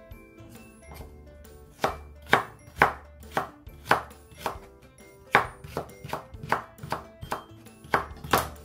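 Chef's knife julienning carrot slices on a wooden cutting board: steady knife strokes knocking against the board about twice a second, starting about two seconds in.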